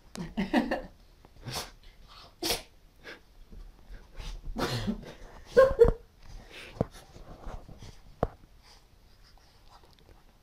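Small dog making short, irregular breathy noises while being held and played with, with handling and bedding rustle; a louder short burst comes about five and a half seconds in.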